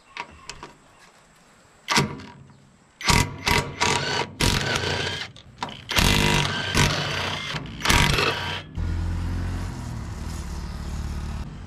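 Cordless impact wrench run in several short spells, about two, three to five, six and eight seconds in, undoing the bolts of a filter cover plate on a Hitachi EX120-5 excavator. A steadier low hum takes over near the end.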